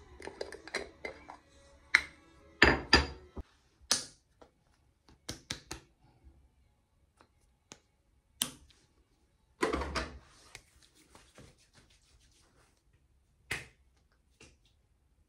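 Clicks, knocks and handling noises of plastic skincare containers: a night-cream jar's lid is opened and a small tube's cap is taken off. The loudest are two knocks close together about two and a half seconds in and a clatter around ten seconds.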